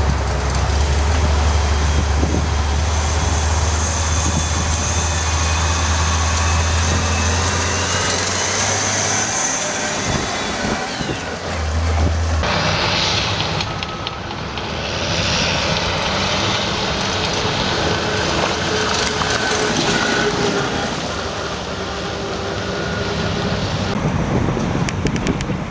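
Liebherr TA 230 articulated dump truck's diesel engine running under way, with a deep steady drone for about the first nine seconds. The drone drops away with a falling whine around ten seconds in, and lighter engine noise with a hiss follows.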